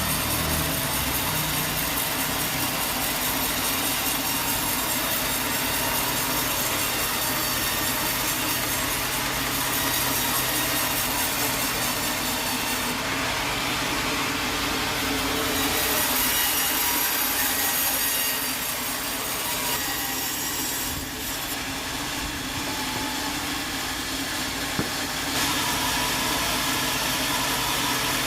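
A sawmill saw running steadily through wood, a continuous mechanical cutting noise with a slight drop in level about two-thirds of the way through.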